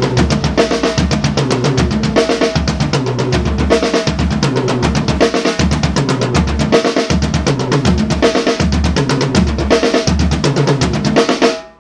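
Drum kit fill in eighth-note triplets, right-left-right on each drum in turn: floor tom, left rack tom, floor tom, snare. It is played fast and repeated over and over, then stops abruptly near the end.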